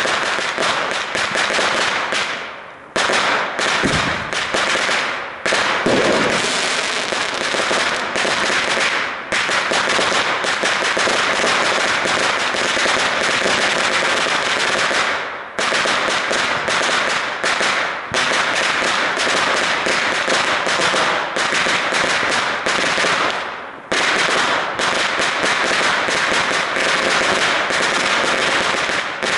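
Firecrackers going off in a dense, rapid, near-continuous run of bangs, with a few brief lulls, about three, fifteen and twenty-four seconds in.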